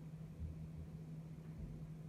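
Quiet room tone with a steady low hum, and a couple of soft low bumps about half a second in and near the end.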